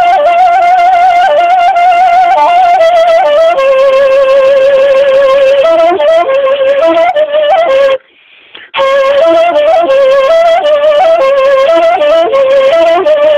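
A solo wind instrument plays a Kurdish folk melody, with a single ornamented line that wavers and steps between notes. There is a short break in the playing about eight seconds in.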